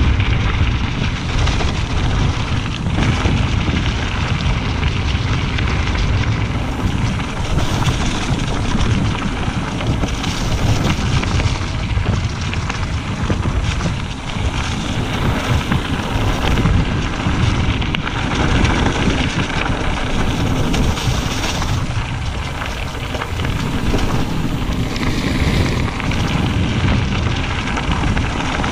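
Wind rushing over an action camera's microphone, with the mountain bike's tyres rolling over gravel and dry leaves during a fast downhill run.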